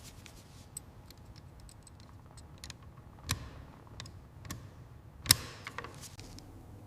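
A scatter of small, sharp clicks and taps from hard objects being handled, with two louder knocks about three and five seconds in.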